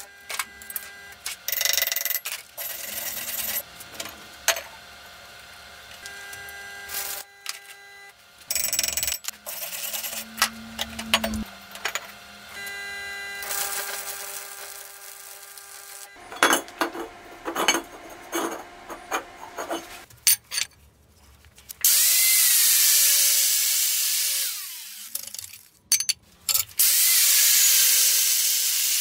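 Metalworking shop sounds in quick cuts: clinks and knocks of metal parts and hand tools. In the last seven seconds a power tool works metal twice, a loud hiss over a steady whine.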